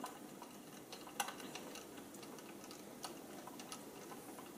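Faint, irregular small clicks and ticks of a screwdriver turning a small screw into an RC car's lower shock mount, a screw that goes in stiffly.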